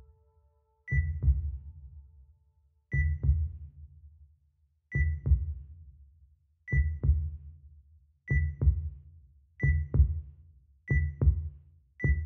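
Heartbeat sound effect: a deep double thump paired with a short high electronic beep on each beat. It comes eight times and speeds up from about one beat every two seconds to about one a second.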